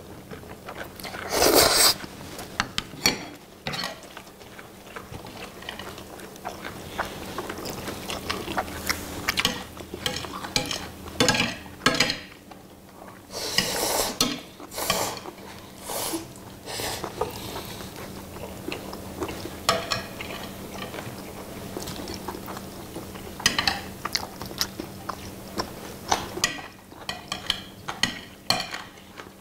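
Jjapagetti noodles being slurped and chewed, with metal tongs and chopsticks clinking and scraping on ceramic plates in many short clicks; the louder slurps come about a second and a half in and again near the middle.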